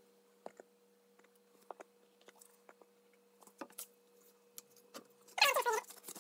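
Scattered light clicks and taps of wood being handled as a thin walnut spline is worked into a glued miter slot, over a steady low electrical hum. Near the end comes a louder squeaky sound, falling in pitch, about half a second long.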